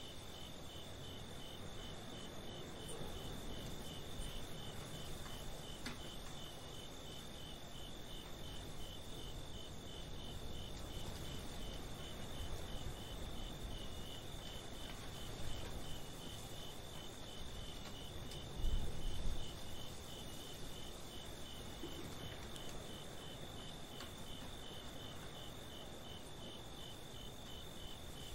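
Crickets chirping in a steady, evenly pulsed trill over a low, constant background noise, with a brief low rumble about two-thirds of the way through.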